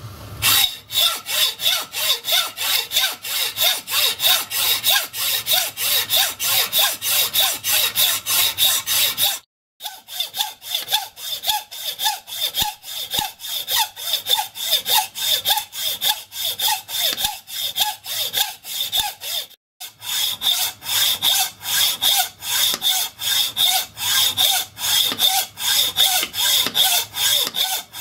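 Hand hacksaw cutting through a solid cast-iron block held in a bench vise: steady back-and-forth strokes, about three a second, with a bright rasp on each stroke. It breaks off briefly twice.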